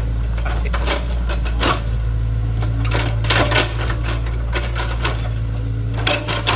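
Hydraulic excavator's diesel engine running with a steady low drone, overlaid by irregular metallic clanks and knocks, a cluster of them loudest midway through and more near the end.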